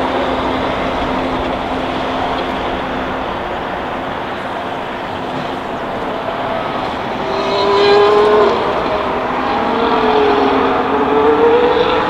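A 2022 Formula One car's turbocharged V6 hybrid engine heard from trackside. At first there is a steady rush of engine noise. From about seven seconds in, a clear engine note comes through, loudest near eight seconds, then dips and climbs again as the car drives through the corners.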